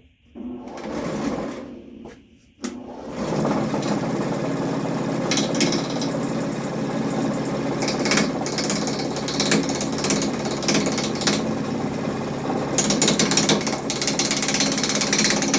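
Harbor Freight wood lathe's electric motor spinning up briefly and coasting down, then switched on again about three seconds in and running steadily with a low hum, under frequent short bursts of high scraping.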